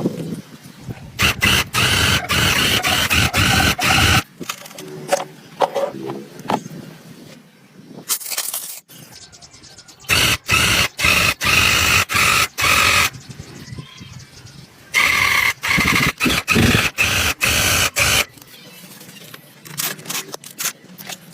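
Harsh scraping on corroded metal in three spells of about three seconds each, made up of quick strokes with short breaks between them.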